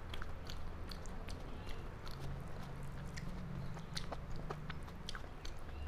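Close-up chewing of a mouthful of rice, with many small wet mouth clicks and lip smacks. A faint low steady hum runs underneath.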